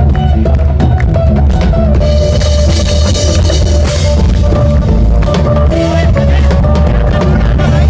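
Loud music with a full drum kit, bass drum and snare playing a steady beat under a sustained bass line and held melodic notes.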